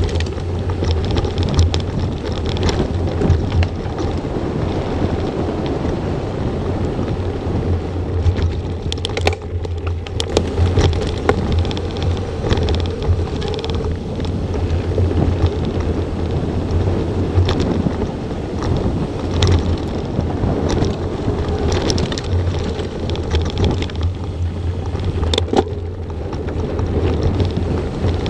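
Mountain bike riding a dirt trail: steady wind rumble on the action camera's microphone, with tyre noise and rattles from the bike and occasional sharper knocks over bumps.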